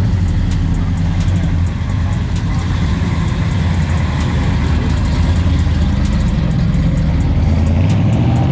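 A car engine running steadily at idle, its exhaust giving a low, even rumble.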